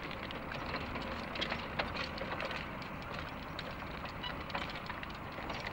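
Bullock cart rolling along a road, its wooden spoked wheels and frame giving off scattered irregular clicks and rattles over a steady background hiss.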